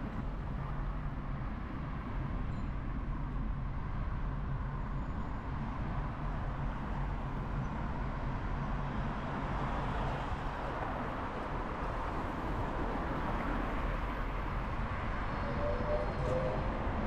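Steady running noise of a moving vehicle heard from aboard: a continuous low hum under an even rushing noise, a little brighter in the second half.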